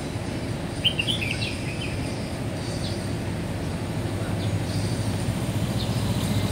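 Street ambience: a steady low traffic rumble, with a bird chirping a few times about a second in. The traffic grows louder toward the end as a vehicle approaches.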